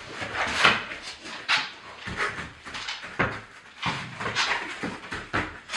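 Chocolate Labrador whining in a string of short bursts, roughly one or two a second, as it begs to play.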